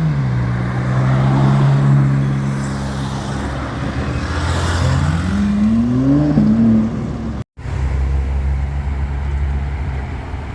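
Car engine running with a steady low note, then revving up in a rising pitch and easing back about five to six seconds in. After a brief dropout, a deeper steady engine rumble follows.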